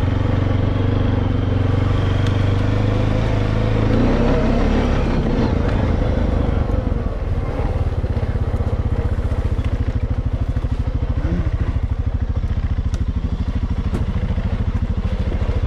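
Four-wheeler (ATV) engine running steadily as it rides, then settling to a slower, even idle about halfway through.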